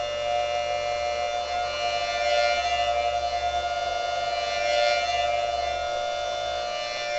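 3D-printed mini Thunderbolt tornado siren running on its blower, its chopper sounding a loud, steady siren tone made of two close notes.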